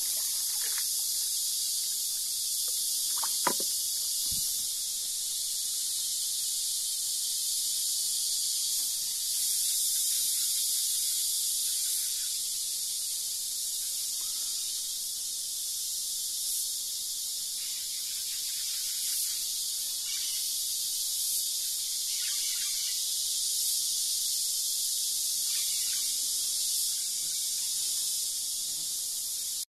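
Steady, high-pitched drone of an insect chorus in tropical forest, with a brief click about three and a half seconds in.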